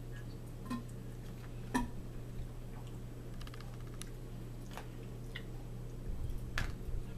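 Small eating and drinking sounds at a table: a handful of sharp clicks and ticks spread through, with a few soft low thumps near the end, over a steady low hum.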